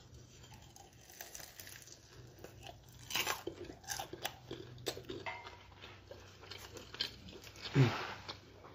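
Close-up crunching and chewing of a crispy deep-fried egg roll wrapper, with a run of crisp crackles about three to five seconds in. A brief voiced sound, falling in pitch, comes near the end.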